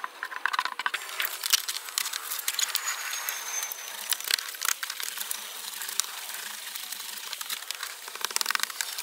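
Stiff UPVC plastic sheet crackling and flexing as it is pressed by hand onto a wall bedded in silicone, with many scattered clicks and light knocks.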